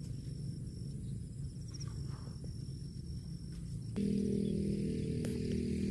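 Outdoor ambience with a high, pulsing insect trill. About four seconds in, a steady low hum starts suddenly and becomes the loudest sound.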